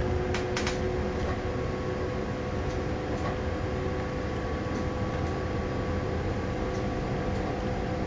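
A moving train heard from inside: a steady running rumble with constant whining tones from the drive, and a quick cluster of sharp clicks about half a second in.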